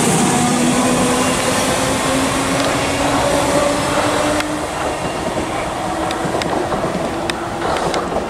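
Southern class 313 electric multiple unit accelerating away from the platform: its traction motor whine rises steadily in pitch over the first few seconds over the rumble of the train, then fades as the train draws off. Sharp clicks from the wheels crossing rail joints come in the last few seconds.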